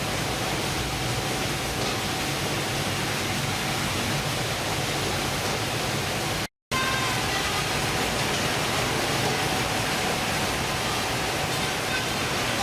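Steady rushing noise with a low drone underneath, the running sound of a fishing vessel's engine and the sea. It cuts out for a split second just past halfway, then carries on the same.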